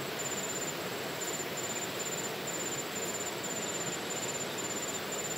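An insect, cricket-like, chirping in short high trills repeated about twice a second over a steady outdoor hiss.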